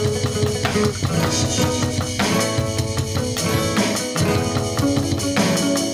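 Instrumental passage of a band song with no singing: a drum kit, bass drum and snare, plays the beat under held notes from pitched instruments.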